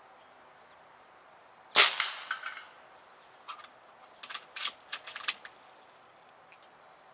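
A .22 calibre JTS AirStryke regulated PCP air rifle fires once, a sharp crack about two seconds in, with a few fainter clicks right after. About a second later comes a run of smaller sharp clicks and clacks.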